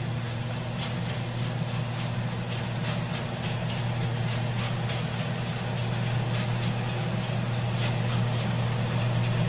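Paddy machine running: a steady engine hum with a regular clatter about three times a second.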